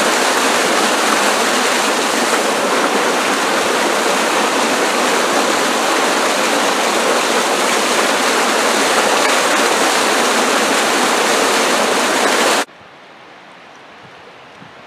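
Small waterfall cascading over rocks, a loud, steady rush of water. It cuts off suddenly near the end, leaving the much fainter flow of a calmer stretch of creek.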